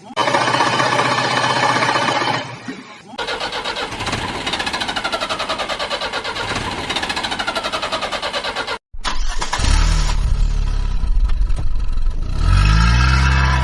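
Diesel engines of construction machinery running, in several abruptly cut segments; one segment has a fast, even pulsing, and near the end a low engine note rises as the engine revs up.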